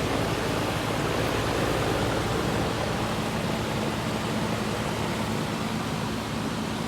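Goodman GSX13 air conditioner condensing unit running: a steady rush of air from the condenser fan over a low, even hum.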